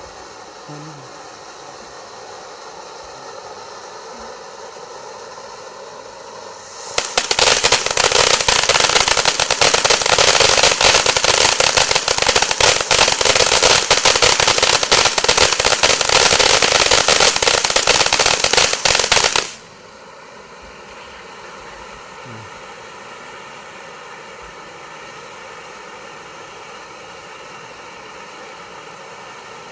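Killer Taco firework fountain going off with a dense, rapid crackle for about twelve seconds. It starts suddenly about seven seconds in and cuts off abruptly.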